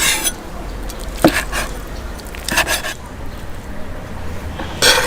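A metal utensil scraping against a pot or plate in a few short strokes, one every second or two, over a steady low rumble.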